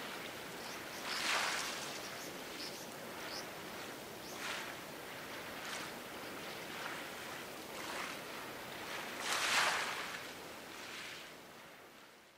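Small waves washing against the shore in a few separate surges over a steady outdoor hiss, fading out near the end.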